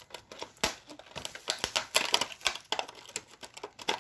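Plastic packaging crinkling and clicking in quick, irregular bursts as hands work it open.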